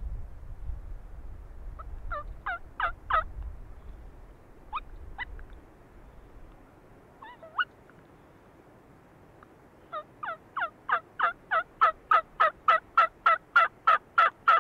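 Turkey yelps: a few short yelping notes about two seconds in and again around five and seven seconds, then from about ten seconds a long, evenly spaced run of yelps, about four a second, growing louder toward the end.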